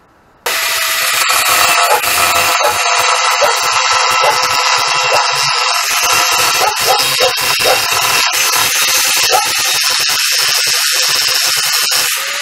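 Corded electric angle grinder cutting into a steel bar with its abrasive disc, throwing sparks. It starts abruptly about half a second in and runs loud and steady.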